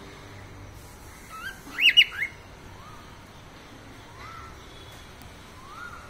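Cockatiel calling and whistling. A quick burst of loud chirps comes about two seconds in, followed by soft rising whistle notes about every second and a half.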